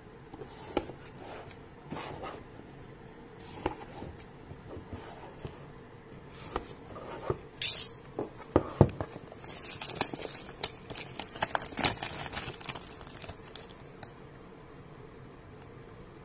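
Paperboard smartphone retail box being opened by hand: scattered taps, clicks and short scrapes as the lid and inner tray slide against each other. The handling gets busier in the middle, with a quick run of scrapes and clicks, and dies away near the end.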